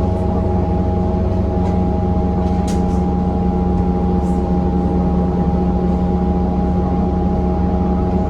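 A 2014 New Flyer XDE40 diesel-electric hybrid bus running steadily: a low rumble with several held whining tones from the drive on top, and a couple of short high rattles about three seconds in. The uploader calls this bus's sound horrible.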